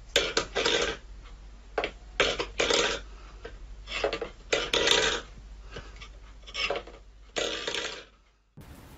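Stainless steel pet bowl scraping and clattering on a wooden floor as a cat paws and pushes it, in repeated bursts of about half a second, the loudest four roughly two seconds apart.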